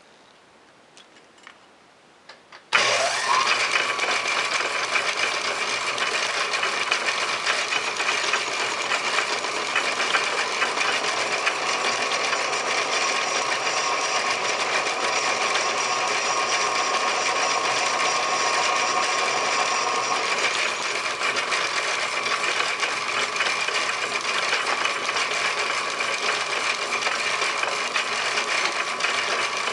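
Metal lathe switching on about three seconds in with a short rising whine, then running steadily. A round-nosed profile cutter deepens the piston-ring groove in a cast brass piston as it turns.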